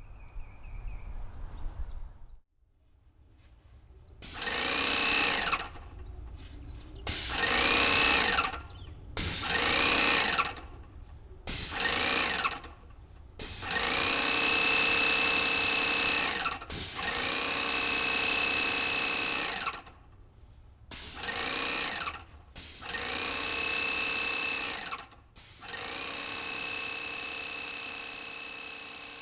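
Graco Magnum X7 electric airless paint sprayer running in about ten bursts of one to three seconds each, starting about four seconds in. Each burst is a broad hiss with a steady whine that rises as the pump motor spins up.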